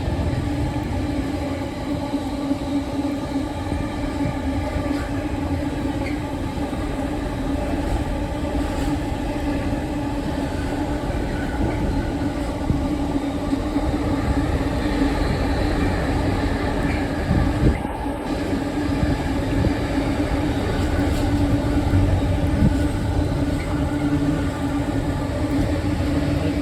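Diesel train running through, its engine holding a steady note over the low rumble of the train on the rails.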